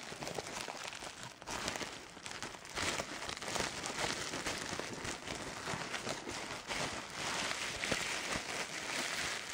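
Plastic bubble wrap crinkling and crackling as it is handled and pulled open by hand. It starts suddenly as a dense run of fine crackles.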